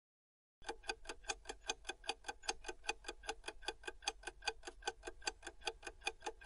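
Countdown-timer sound effect of a clock ticking fast, at about five even ticks a second. It starts about half a second in, after a brief silence.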